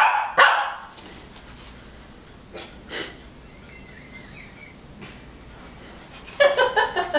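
A Shih Tzu barking out a count in answer to a question: one loud, short bark about half a second in, then softer, shorter ones around three seconds in.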